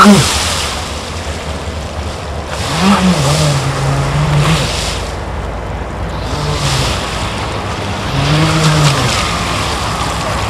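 Electric radio-controlled speed boat going by: its motor whine drops sharply in pitch as it passes at the start. It then runs farther out, the motor pitch rising and falling with the throttle over a steady hiss of water.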